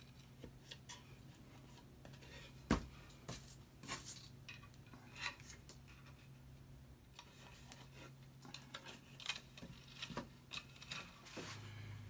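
Faint clicks and scrapes of braided picture-hanging wire being threaded through holes in a wooden board and handled, over a low steady hum. A sharper knock comes about three seconds in, and the small clicks grow more frequent in the second half.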